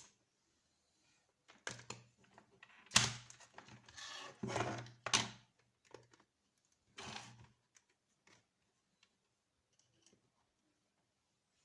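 Handling noise from hard plastic and metal: a run of knocks, scrapes and rattles, with a sharp knock about three seconds in, then a few faint clicks.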